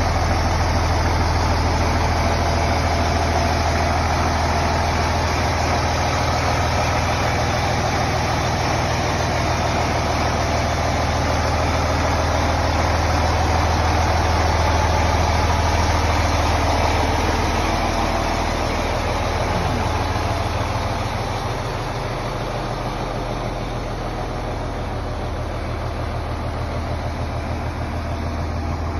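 Diesel engine of a 2004 American LaFrance fire engine idling steadily with a low rumble, a little quieter in the last third.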